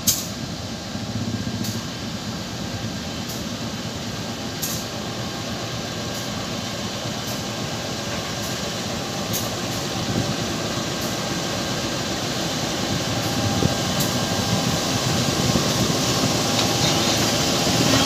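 CC201 diesel-electric locomotive running as it creeps past at walking pace, its engine and rolling wheels growing gradually louder as it draws alongside, with faint ticks every second or two.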